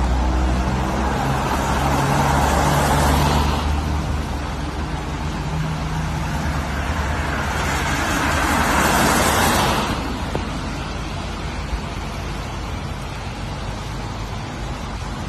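Cars passing on a rain-soaked road, tyres hissing on the wet tarmac: one swells up and fades about two to three seconds in, another around eight to ten seconds in. Steady rain noise underneath.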